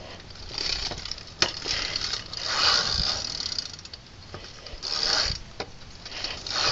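Bicycle rear hub freewheel ratcheting in four bursts as the wheel spins, with a few sharp clicks in between.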